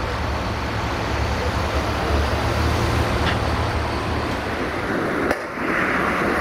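A heavy diesel engine running at a steady idle, a constant low hum. About five seconds in the sound cuts abruptly to road traffic, with a heavy truck on the road.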